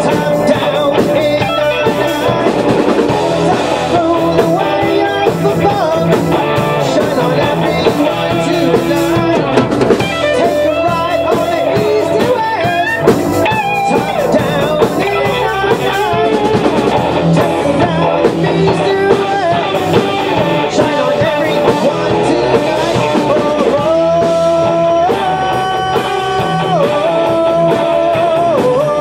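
Rock band playing: electric guitar, bass guitar, drum kit and electronic keyboard, at a steady loud level.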